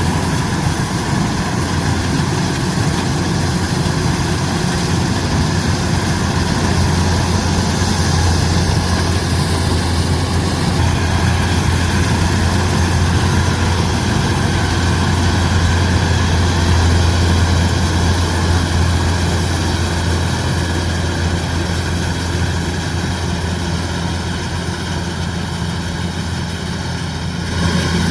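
Kubota DC-105X combine harvester running steadily, with a deep engine drone and mechanical noise. It gets a little quieter for a few seconds near the end, then comes back up.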